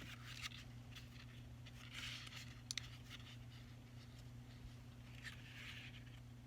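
Faint rustling of book pages being handled and turned, twice, with a small click, over a low steady hum.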